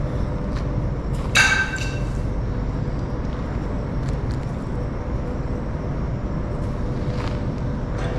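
Steady low rumble with a faint steady hum, broken about a second and a half in by one short, loud, high-pitched squeak. These are the unexplained sounds heard in the factory.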